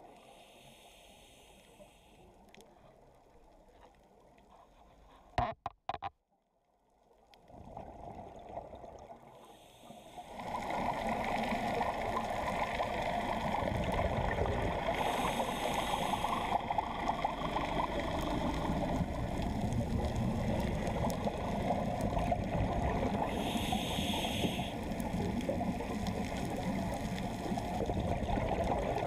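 Muffled underwater noise picked up through a dive camera's housing: quiet at first, then a louder steady rush from about a third of the way in, with two short bursts of hiss about eight seconds apart, typical of a scuba diver's exhaled bubbles.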